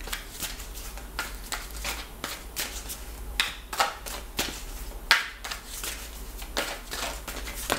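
A tarot deck being shuffled by hand, an overhand shuffle: a quick, irregular run of soft card flicks and slaps, with a few louder snaps here and there.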